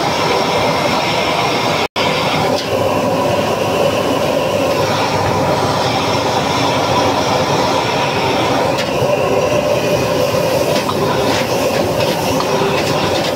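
High-output gas wok burner running at full flame with a steady loud roar that briefly cuts out about two seconds in. Near the end a ladle stirs in the wok.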